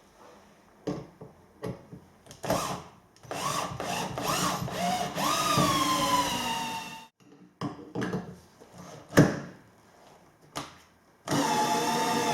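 Power drill running in bursts, its whine sagging in pitch as it comes under load, with a few sharp knocks between the runs.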